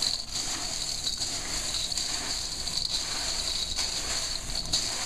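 Hands tossing and stirring popcorn in a large stainless steel bowl, a steady dry rustling of the kernels.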